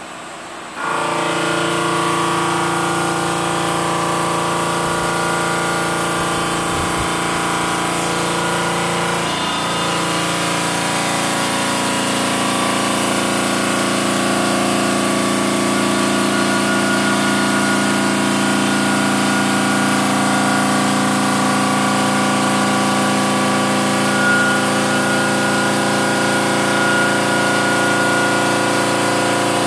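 Diamond blade of a Park Industries Saber 5-axis CNC bridge saw cutting a stone countertop slab under water spray: a loud, steady, many-toned whine that sets in abruptly about a second in and holds even.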